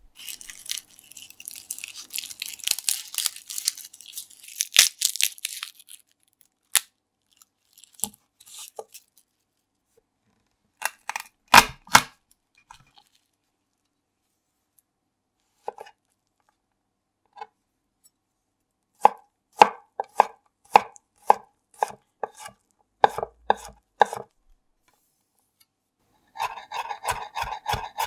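A garlic bulb being broken apart by hand, its papery skin crackling for several seconds, then a couple of loud knocks as a clove is crushed with a chef's knife on a wooden cutting board. Separate knife strikes on the board follow at about two a second, and near the end fast, even chopping as the garlic is minced.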